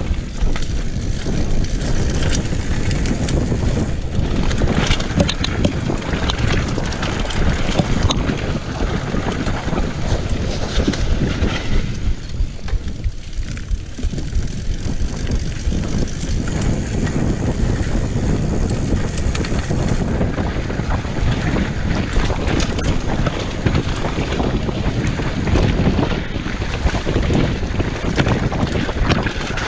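Wind buffeting the camera's microphone during a fast mountain bike descent on dirt singletrack, over the rumble of knobby tyres on the dirt and the rattles and knocks of the bike over bumps.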